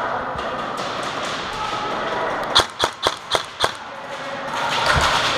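An airsoft rifle firing five quick shots, about four a second, some two and a half seconds in, each a sharp snap.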